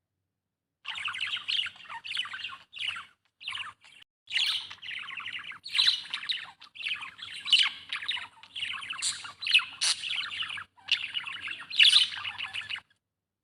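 Budgerigar chirping and warbling in quick runs of short notes with brief pauses. The sound starts about a second in and cuts off suddenly near the end.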